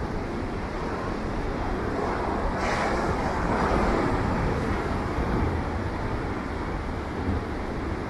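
Heavy storm-swell surf breaking on the beach as a steady rush, with one wave swelling louder about three seconds in.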